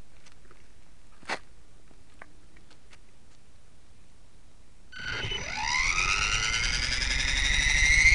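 Align T-REX 450 electric RC helicopter's motor and drive gears spooling up. Starting about five seconds in, a whine rises steadily in pitch as the rotor comes up to speed. Before that there is only a faint hiss with a few small clicks, one sharper click about a second in.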